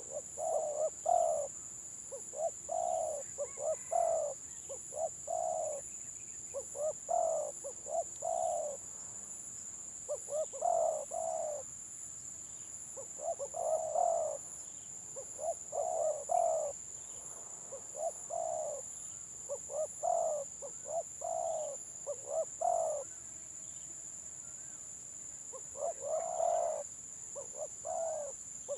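Spotted doves (tekukur) cooing in repeated phrases of several short notes, one phrase every two to three seconds, in the broken, stuttering 'gagap' style of call. A steady high-pitched whine lies under them.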